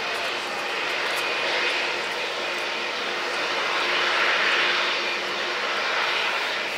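Jet aircraft engines heard across an airfield: a steady rushing noise with a faint whine through it, swelling to its loudest about four seconds in and easing off again.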